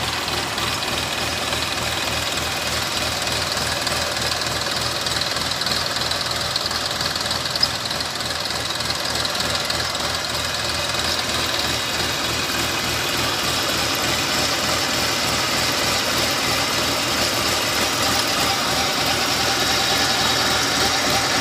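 Massey Ferguson tractor's diesel engine running steadily at low revs, about 600 to 700 rpm, driving a PTO-powered water pump for sprinklers. A single brief knock sounds about eight seconds in, and the engine grows a little louder near the end.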